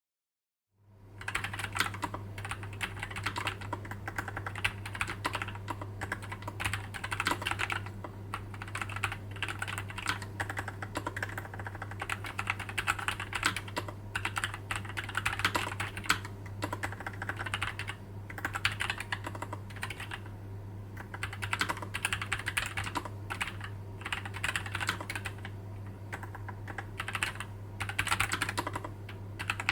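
Continuous fast typing on a low-profile mechanical keyboard with Gateron Low Profile 2.0 Red linear switches, a dense run of key-press clacks starting about a second in. A steady low hum sits underneath.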